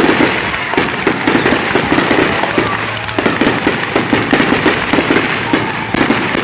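Fireworks display: aerial shells bursting overhead as a dense, fast run of sharp pops and crackles, many a second.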